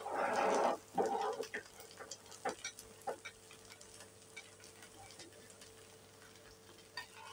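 Flat metal spatula scraping under a crisp wheat-flour dosa on a non-stick pan to loosen it for flipping: two scrapes in the first second and a half, then scattered light ticks and crackles as the dosa is lifted.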